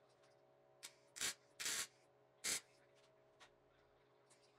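Short scraping rasps, three loud ones and a fainter one before them, over about a second and a half, as a homemade brake-line flaring tool is handled in a steel bench vise, over a faint steady hum.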